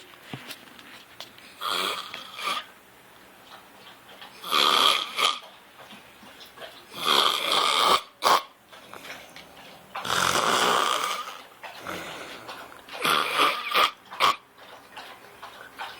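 A man snoring in his sleep: five snores, each lasting about a second, roughly three seconds apart.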